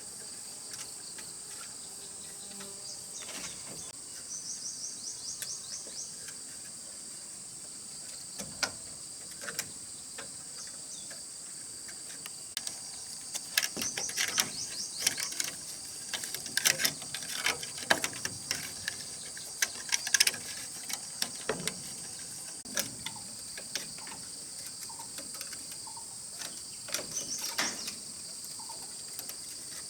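Insects chirring steadily and high-pitched throughout, with scattered sharp clicks and knocks that come thickest about halfway through.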